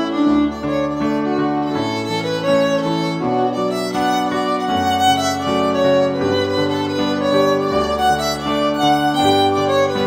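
Background instrumental music: a violin melody of long held notes over a lower accompaniment that steps from note to note.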